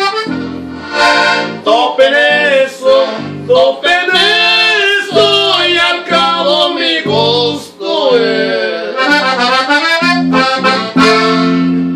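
Button accordion playing a fast norteño melody over an electric bass guitar holding steady low notes.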